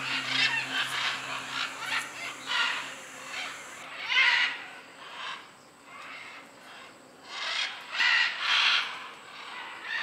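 A flock of scarlet macaws squawking: a string of harsh, raspy calls, with a loud one about four seconds in and a cluster of loud squawks near the end.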